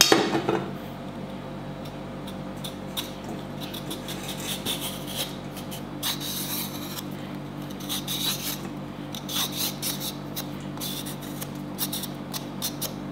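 Green papaya being peeled: a run of short, irregular rasping scrapes as the blade strips the firm skin, over a steady low hum.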